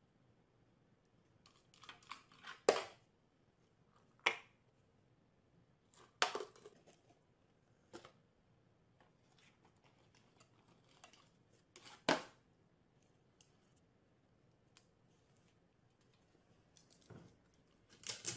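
A small dog pawing and nosing at a tin can and a cardboard box on a glass tabletop: scattered light scrapes and taps, about five of them short and sharp, with quiet gaps between.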